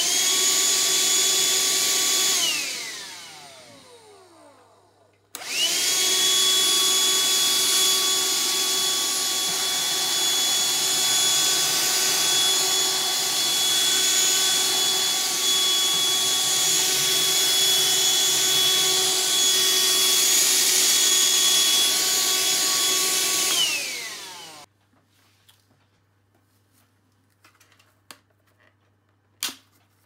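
Black & Decker 16.2 Wh Dustbuster cordless handheld vacuum switched on with a high motor whine, run for about two seconds, then switched off, its pitch falling as the motor spins down. About five seconds in it is switched on again and runs steadily for nearly twenty seconds, sucking cake and crisp crumbs off a worktop. It then switches off and winds down with a falling whine, followed by a few light handling clicks.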